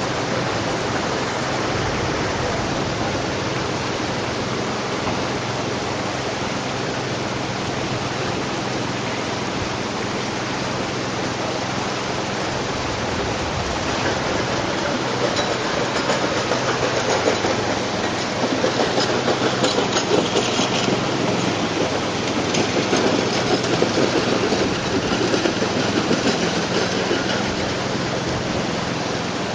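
Flood water rushing steadily, with a faint low hum underneath. About halfway through the rush turns rougher and more uneven.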